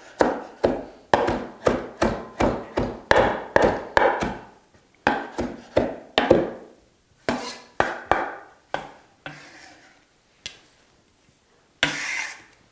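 Chef's knife chopping fresh basil on a wooden cutting board: quick, regular knocks about three a second, thinning out and stopping about nine seconds in. A short noisy sound follows near the end.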